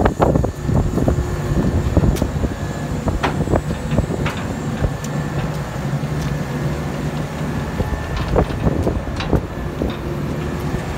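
Diesel engine of a Vögele 1800-2 tracked asphalt paver idling steadily, with scattered short clicks and knocks over the drone.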